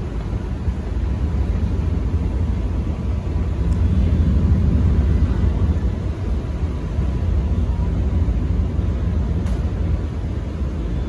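Star Ferry's engine running with a steady low rumble as the ferry comes in to dock, with water and wind noise over it; the rumble swells a little a few seconds in.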